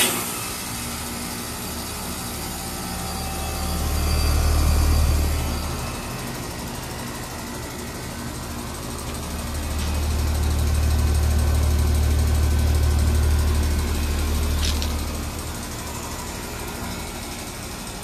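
Carrier Comfort Series heat pump outdoor unit running with a steady hum, with a click at the start and another near the end. A deep low rumble swells up twice, briefly and then for about five seconds, and is the loudest part.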